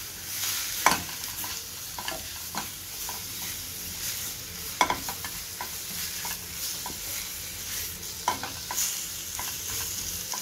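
Minced chicken, onion and capsicum sizzling in a stainless steel pan while a wooden spatula stirs and scrapes it. The steady frying hiss runs under repeated short scrapes, with a few louder knocks of the spatula on the pan, about a second in, near five seconds and twice near the end.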